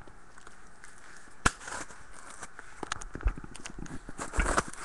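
Cardboard shipping box being ripped open by hand: scattered crackling and scraping with sharp clicks, one sharp click about a second and a half in and a louder rustle near the end.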